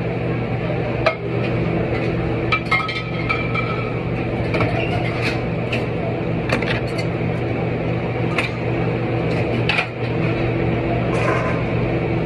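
Dishes and utensils clinking and knocking every second or so, some strikes ringing briefly like glass, over a steady machine hum.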